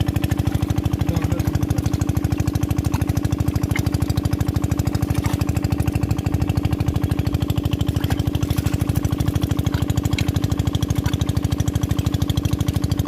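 Small engine running steadily at a constant speed, an even fast chugging of about a dozen beats a second.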